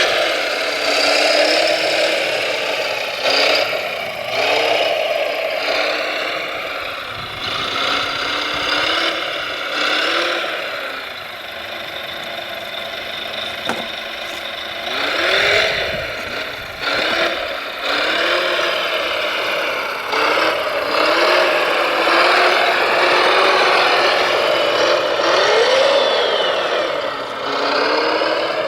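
Electric motors of large radio-controlled construction machine models whining, their pitch rising and falling again and again as the machines are driven, with rattling and occasional clunks.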